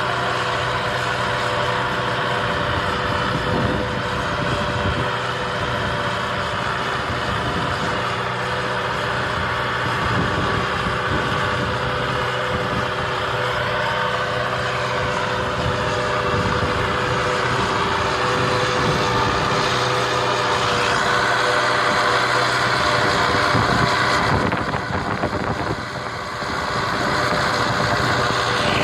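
Ford 276 tractor's engine running steadily. It grows a little louder about twenty seconds in and dips briefly about five seconds later, then settles again.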